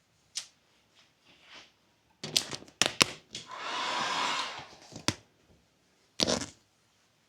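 Several sharp clicks and knocks, then a rushing hiss lasting about a second and a half, then one more knock near the end.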